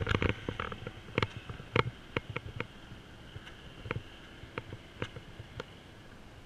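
Handling noise from a handheld camera being carried around a parked car: irregular light ticks and taps over a faint steady hiss, busiest in the first two or three seconds and then sparser.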